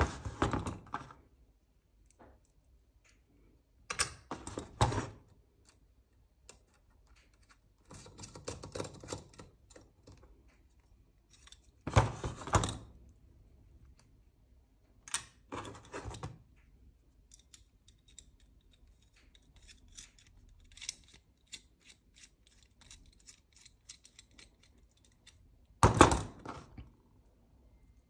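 Chainring bolts and a Stronglight chainring being handled and fitted to the crank spider: short bursts of clicking and clinking every few seconds, with lighter ticking in between. The loudest bursts come near the middle and near the end.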